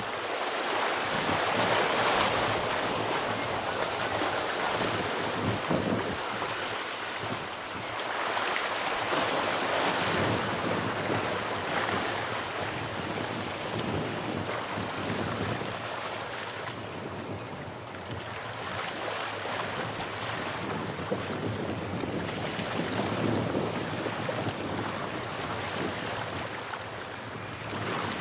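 Small sea waves washing over and draining off shoreline rocks, surging and easing every few seconds, with wind buffeting the microphone.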